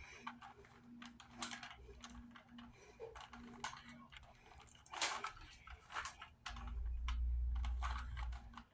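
Plastic Rubik's Cube layers being turned by hand: irregular quick clicks and rattles, with a low rumble lasting about two seconds near the end.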